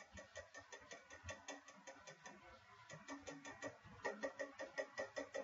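Kitchen knife tip tapping and stabbing on the glass screen of an iPhone 5S in quick light strokes, about five or six sharp clicks a second. The taps get harder about four seconds in.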